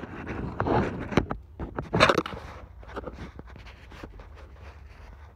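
Rubbing and scraping handling noise from the recording phone being moved about, with scattered sharp clicks, loudest in the first couple of seconds and then fading to a few light clicks over a low steady hum.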